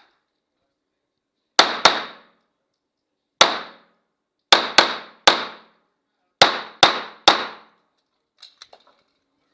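Pistol shots fired in quick strings: a pair, a single shot, then two strings of three about half a second apart, nine shots in all. A few faint light clicks follow near the end.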